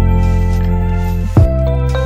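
Background music: sustained, gently shifting chords over a steady bass, with a strong beat near the start and another about 1.4 s in.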